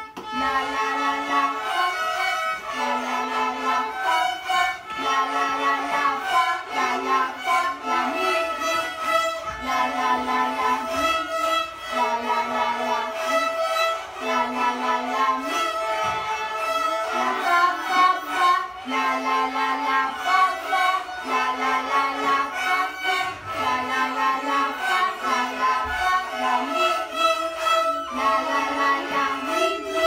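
A group of children playing violins together: a simple tune of bowed notes, each held about a second, in a repeating pattern.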